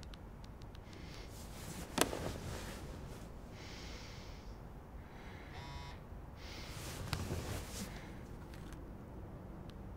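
A person's soft breathing against a quiet room, in a few breathy bursts, with a sharp click about two seconds in.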